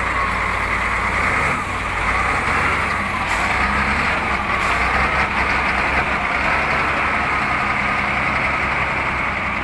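Heavy diesel engine of a wheel loader running steadily, a low rumble with a thin whine above it, as the loader works against a wrecked truck.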